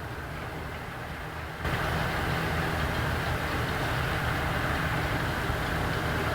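CLAAS Axion 960 Terra Trac tractor engine running steadily under load while pulling a cultivator across a field. The sound jumps abruptly louder, with more clatter and rush, about a second and a half in.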